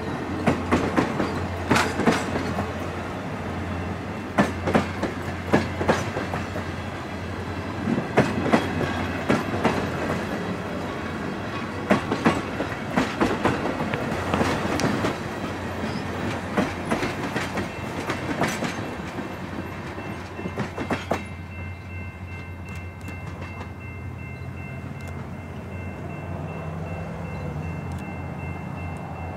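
Passenger cars of an excursion train rolling past close by, their wheels clicking over rail joints in quick groups over a low steady hum. About two-thirds of the way in the clicking stops and a distant train horn sounds steadily.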